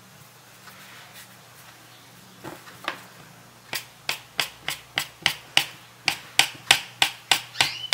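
Knife blade tapping sharply on the countertop, about three clicks a second, as it chops a rope of potato gnocchi dough into small pieces; the taps begin a few seconds in.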